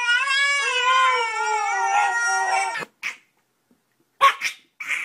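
Husky giving one long, wavering howl, its 'talking' call to the baby, that slides slowly down in pitch and stops abruptly about three seconds in. A few short loud vocal bursts follow near the end.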